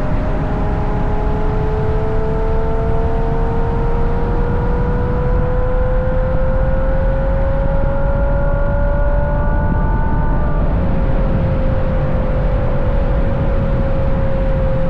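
Ferrari GTC4Lusso's V12 through a Capristo aftermarket exhaust, pulling in gear with its note rising slowly and steadily. About two-thirds in the pitch drops a little and it settles into a steadier cruise. Heavy wind and road rumble on the outside-mounted microphone.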